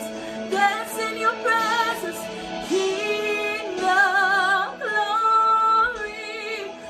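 Worship music: a woman's voice sings sliding phrases and then long held notes with vibrato, over a steady sustained accompaniment.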